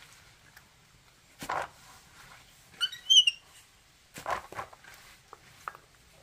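A small monkey giving a quick series of high-pitched squeaks about halfway through, with short rustles of shredded plant matter being handled before and after.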